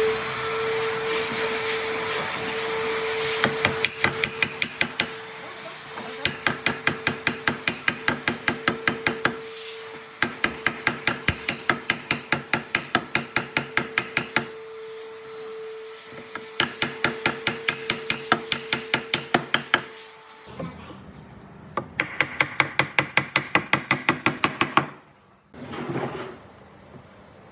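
Light, rapid hammering on wood, about five even strikes a second, in several runs of a few seconds each. A steady machine hum underneath stops about twenty seconds in, and a last run of strikes comes near the end.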